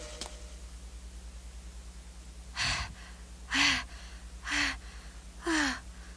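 A cartoon boy's voice panting: four short, gasping breaths about a second apart, each falling slightly in pitch.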